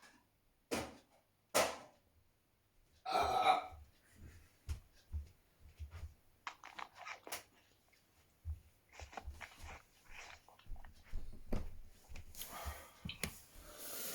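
Scattered small knocks, clicks and rustles, with one short throaty sound about three seconds in.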